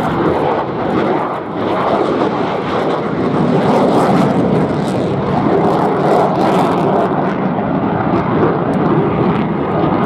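The twin J79 turbojets of a McDonnell Douglas F-4EJ Kai Phantom II in flight make a loud, steady jet noise that grows a little louder about two seconds in.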